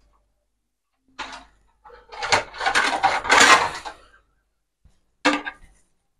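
Kitchen utensils clattering and scraping in three short bouts: a brief one about a second in, a longer busy stretch in the middle, and another brief one near the end.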